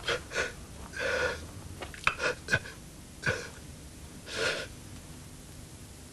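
A person breathing heavily in a series of short, shaky gasps and breathy exhalations, about eight in all, the longest about a second in and near four and a half seconds.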